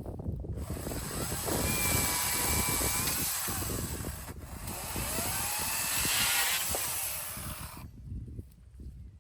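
Chainsaw running at high revs on a fallen gum tree, its pitch climbing and falling as it works. It dips for a moment about four seconds in and stops about a second before the end.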